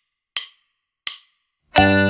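Two evenly spaced count-in clicks, like a metronome wood-block tick, then the backing band comes in with guitar near the end.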